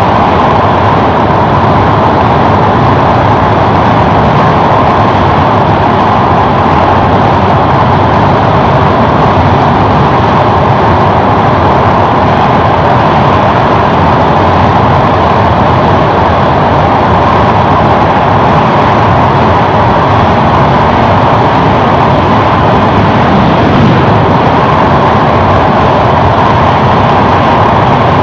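Passenger train running at speed across a steel truss bridge, heard from an open carriage window: a loud, steady rush of wheels on the rails and passing air, with no breaks.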